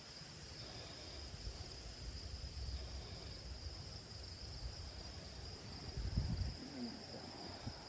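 Steady high-pitched insect chirring, two even tones held throughout, over a low rumble that swells briefly about six seconds in.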